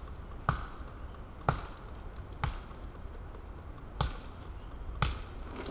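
Wetterlings Forest Axe chopping into wood: five sharp strikes, roughly one a second, with a slightly longer pause before the fourth.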